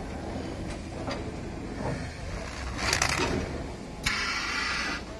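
Automatic turntable stretch-wrapping machine running with a steady mechanical hum and a few clicks, a short loud rush about three seconds in, then about a second of steady compressed-air hiss from the pneumatic film clamp and cutter cylinders.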